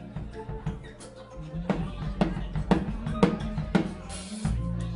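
Live band instrumental: a low bass line under a drum kit, with the drums coming in firmly about a second and a half in at about two hits a second and a cymbal crash near the end.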